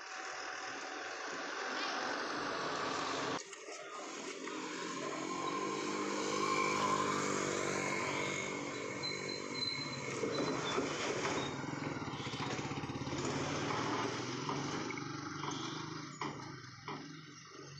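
A motorcycle engine running as the bike rides past, its note building over a few seconds and then fading away, over steady street noise.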